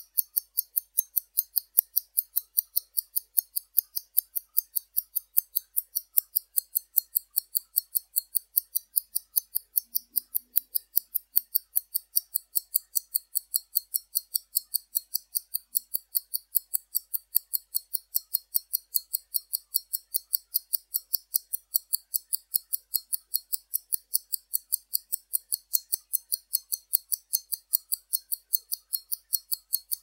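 1956 Pobeda mechanical wrist watch movement ticking, its escapement giving an even run of sharp, high ticks at about five a second.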